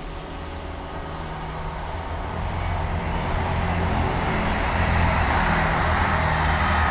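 Passenger train running along the line, its low rumble and rushing wheel noise on the rails growing steadily louder as it approaches, from about two seconds in.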